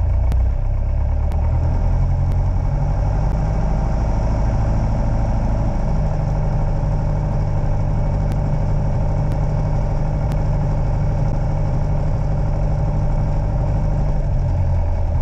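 Light aircraft's piston engine running at low power, heard from inside the cockpit. The engine note steps up slightly about two seconds in and again around six seconds, then drops back near the end.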